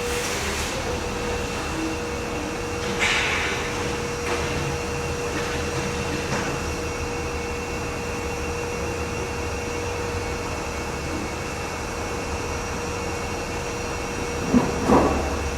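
Construction machinery running steadily with a constant mechanical hum and noise, broken by a few short clanks and a louder clatter near the end.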